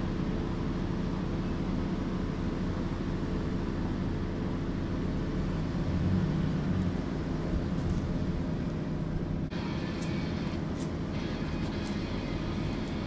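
Pickup truck engine running steadily at low revs while it tows another truck by a ratchet strap. About two-thirds of the way through the sound changes abruptly, followed by a few sharp knocks.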